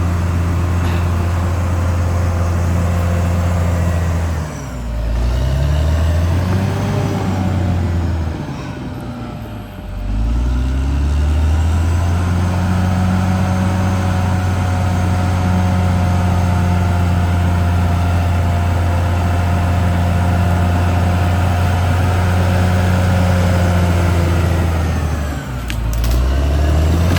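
Caterpillar D6R XL bulldozer's diesel engine running hard. Its pitch dips and climbs back three times: about four seconds in, around ten seconds in, and near the end.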